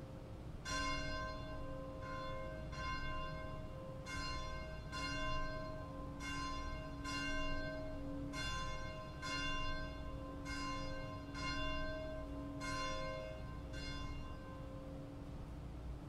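Church bell tolling, struck about once a second, each stroke ringing on into the next, dying away near the end.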